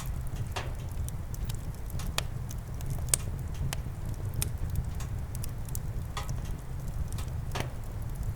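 Campfire crackling, with wood popping at irregular intervals over a steady low rumble of the flames; the sharpest pop comes about three seconds in.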